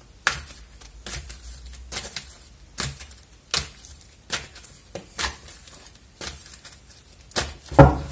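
A deck of oracle cards being handled and shuffled by hand: a series of sharp card taps and clicks, roughly one a second, with a louder knock near the end.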